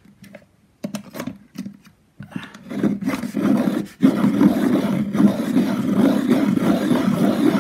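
Hand-cranked pencil sharpener sharpening a coloured pencil: a few clicks as the pencil is clamped in, then from about two seconds in a rough, steady grinding as the crank turns, louder from about four seconds in.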